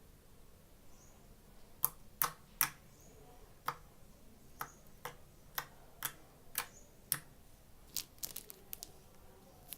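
Slime being pressed and worked by hand, giving a series of sharp, irregular clicks and pops, about fifteen over seven seconds, starting about two seconds in.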